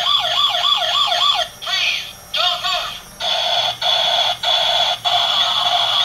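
Toy police car's electronic siren sound effects, loud through its small built-in speaker: a fast wailing sweep, about three a second, then a run of different siren patterns broken by short pauses. The sound is so loud it is treated as the toy's problem, to be cured with a 100-ohm resistor in series with the speaker.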